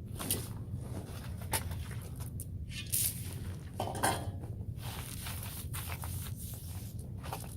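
Scattered light knocks and scrapes, a few a second, over a steady low hum, with a slightly longer scrape about four seconds in.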